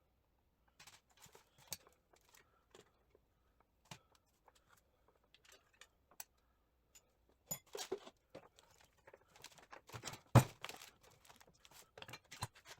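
Scattered clicks and light metal knocks of parts being worked inside a Triumph TR6 gearbox casing while trying to get the countershaft to drop, growing busier in the second half, with one sharper knock a little after ten seconds in.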